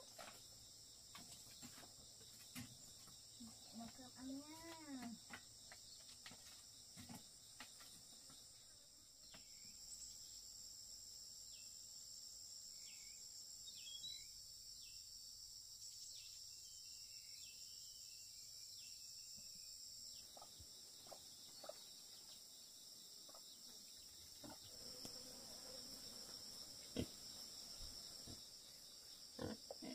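Steady high-pitched chorus of insects, with scattered soft clicks and knocks. About four seconds in there is a brief rising-and-falling voice-like call, and faint chirps come through in the middle.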